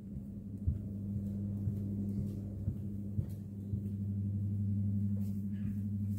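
A steady low electrical hum that grows louder about four seconds in, with a few faint taps over it.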